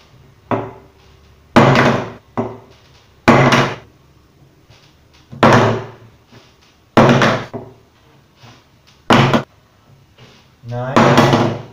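A metal perfume spray bottle being flipped and landing on a wooden desk: about six loud knocks, roughly one every second and a half to two seconds, with a few lighter taps between them, as the bottle hits the wood and topples over on failed flips.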